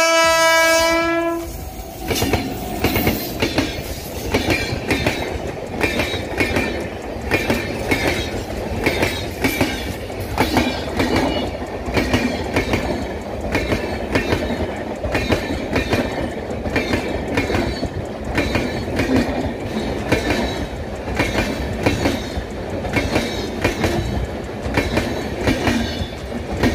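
An Indian Railways electric locomotive blows one steady horn note for about the first second. Then its passenger coaches roll past close by, the wheels clattering over the rails in a steady clickety-clack rhythm.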